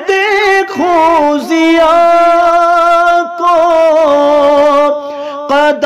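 A man singing an Urdu manqabat (devotional poem), stretching a line over long held notes that waver and slide in pitch.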